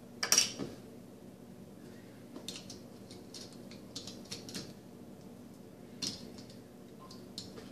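Scattered small clicks and taps of plastic Lego pieces as a minifigure is fitted into a small Lego car, with the sharpest click just under half a second in.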